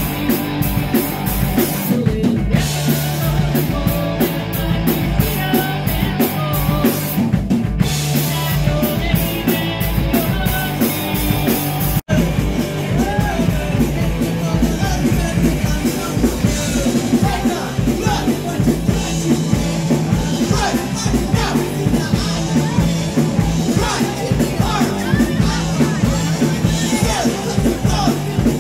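Live rock band playing loud and fast: drum kit with steady cymbal hits, distorted electric guitars and bass, and sung-to-yelled vocals. The drums drop out briefly twice early on, and the whole sound cuts out for an instant about twelve seconds in.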